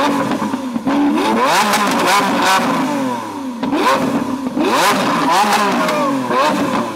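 Lamborghini Aventador's V12 being revved hard in repeated blips, the pitch rising and falling with each one. Sharp pops and bangs come from the exhaust between the revs as it spits flames.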